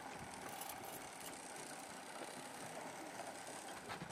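Faint, steady running of a small boat's outboard motor.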